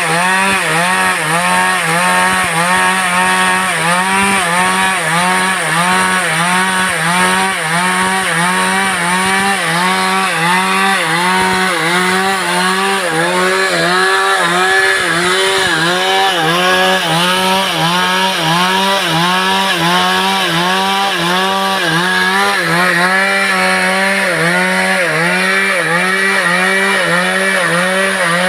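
Two-stroke replica Stihl chainsaw with a 24-inch guide bar running at high revs while cutting through wood. Its engine note rises and falls in a quick, regular rhythm as it works in the cut.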